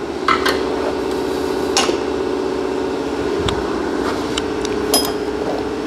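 A steady mechanical hum from shop equipment, with a few light clicks and knocks as parts are handled on the oil drain pan.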